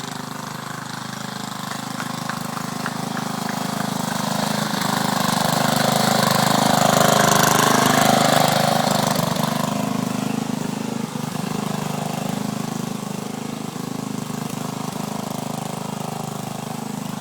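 Lawn mower engine running steadily, growing louder to a peak around the middle and then fading somewhat, as the mower comes near and moves away.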